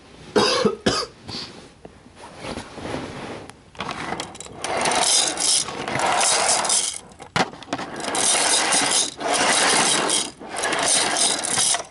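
Mechanical rattling and scraping from a toy train car with a camera on it being handled by hand. The noise grows louder and denser about four seconds in, with brief breaks.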